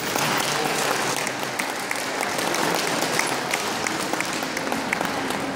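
Crowd applauding, many hands clapping at once; the clapping breaks out suddenly and keeps up steadily.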